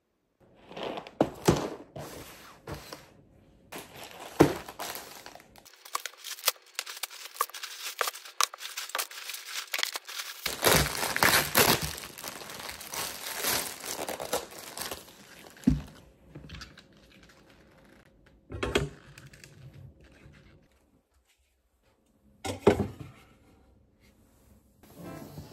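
Plastic grocery packaging rustling, crinkling and tearing in irregular bursts as groceries are unpacked by hand, with a few sharp knocks in between.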